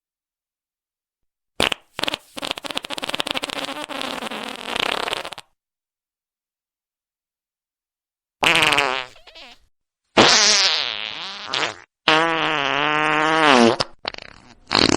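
A series of fart sounds separated by silent gaps. A short pop comes first, then a long sputtering, rattling fart of about three seconds. After a pause come several pitched farts whose tone wavers up and down, in quick succession.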